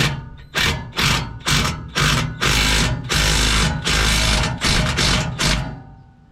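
A power tool with a 13 mm socket spinning in short trigger bursts, with a few longer runs in the middle, as it tries to tighten the front bolts of an exhaust.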